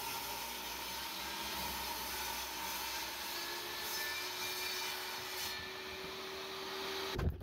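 Table saw ripping an 8/4 white oak board: a steady run of blade and motor noise that stops abruptly near the end.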